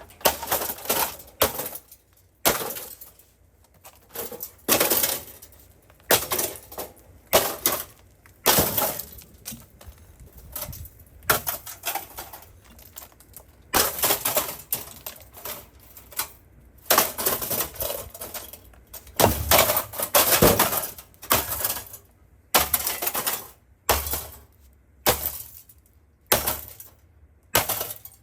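Asus Republic of Gamers computer case being smashed apart: a long series of sharp, irregular blows, roughly one every second, with breaking and clinking of the case's pieces.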